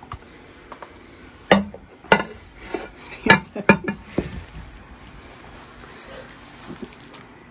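A stainless saucepan and utensil knocking and clanking several times, then cheese-coated wagon wheel pasta sliding out of the tipped pot into a glass baking dish with a soft, steady rustle.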